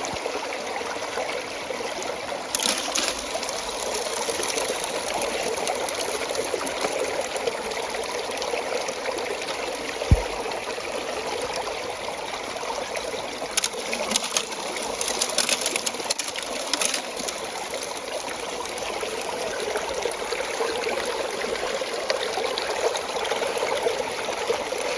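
Stream water running steadily through a gold sluice box, with scattered sharp clicks and one low thump about ten seconds in.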